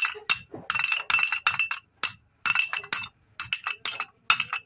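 Steel rod rattling and tapping against the roller bearing in the hub of a Changfa CH40 diesel engine gear: quick clusters of metallic clinks with a ringing note, stopping and starting.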